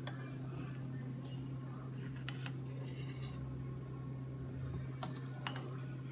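Metal spoon clicking lightly against a stainless steel pot several times while skimming foam off boiling beans, over a steady low hum.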